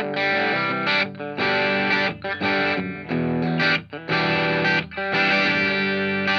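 Electric guitar, a PRS S2 Vela on its bridge pickup, played through a Hotone Britwind amp into a 10-inch Vox speaker cabinet and picked up by an ART AR5 active ribbon microphone. Chords are strummed in short phrases, cut off briefly several times between them.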